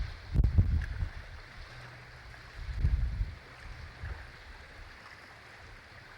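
Wind buffeting the microphone in two low rumbling gusts, one just after the start and one about three seconds in, over a faint steady outdoor hiss.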